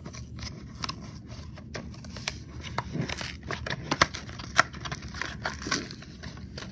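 Clear plastic blister pack of a Matchbox die-cast toy truck crinkling and crackling as it is handled and pried open by hand, with irregular sharp clicks and scrapes; the sharpest snaps come about four seconds in.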